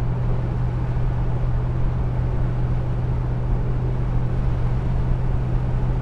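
Chevrolet Camaro's 6.2-litre V8 engine running at steady cruising revs, a constant low drone that neither rises nor falls, under an even rush of road and wind noise.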